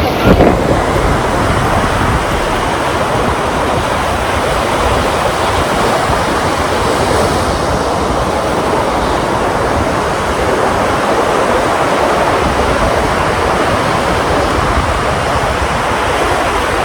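Ocean surf washing in a steady rush of noise.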